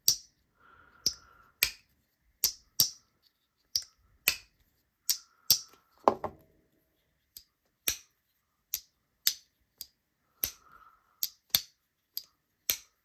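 Slipjoint pocket knife's walk and talk: the backspring snaps the blade through its half stop and into the open and closed positions. It makes a string of sharp pops, roughly one or two a second, often in pairs.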